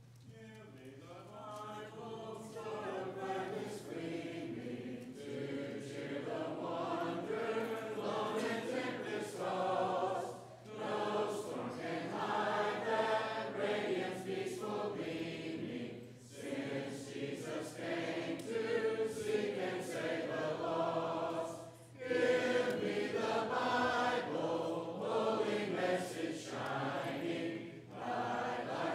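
Congregation singing a hymn a cappella, many men's and women's voices together with no instruments. The singing swells in over the first couple of seconds and breaks briefly between lines about every six seconds.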